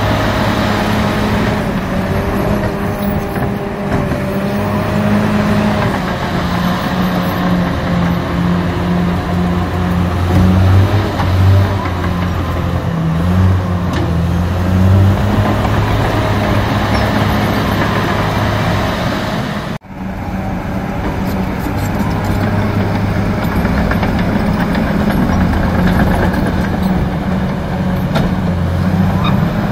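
Fiat Kobelko FL145 crawler loader's diesel engine running under load as it levels soil, its pitch stepping up and down with the work. The sound drops out for an instant about two-thirds of the way through.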